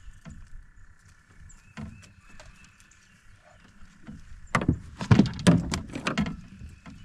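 A cluster of sharp knocks and thumps against a metal john boat's hull and floor, starting about four and a half seconds in and lasting about two seconds, after a quieter stretch of small scattered clicks.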